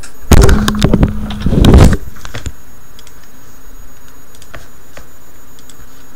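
Loud rustling and knocking as the recording device is handled right against its microphone, lasting about a second and a half, then a steady faint hiss with a few small clicks.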